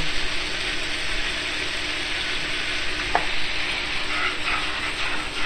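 Shishito peppers sizzling steadily in a hot pan in a butter, yuzu and soy sauce glaze. There is a single short click about three seconds in.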